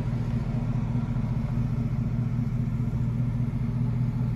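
Steady low hum of a parked car's engine idling, heard from inside the cabin.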